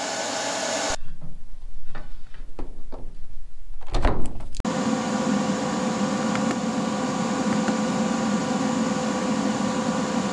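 Steady hum of a Vulcan OmniPro 220 welder's cooling fan, with a couple of faint clicks as its control knob is turned. Before that comes a stretch of low rumble and scattered knocks, with a loud thump about four seconds in.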